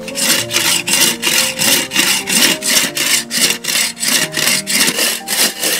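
A hand saw cutting through a raw cow leg bone, with quick back-and-forth rasping strokes, about three a second.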